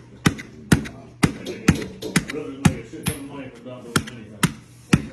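A capuchin monkey knocking a raw potato against a plastic cutting board, about ten sharp knocks at roughly two a second.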